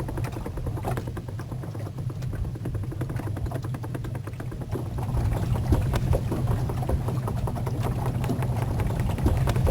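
Small boat's motor running steadily with a fast, even beat, getting a little louder about halfway through.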